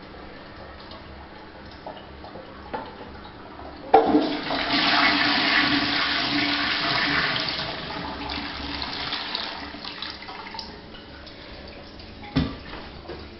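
Lever-handled toilet cistern flushing: a sharp clack of the lever about four seconds in, then a loud rush of water swirling through the bowl that fades away over several seconds. A single knock comes near the end.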